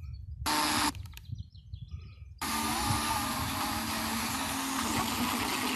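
FM radio being tuned through the band: a brief snatch of a station's audio about half a second in, then from about two and a half seconds a weak station heard under steady static hiss.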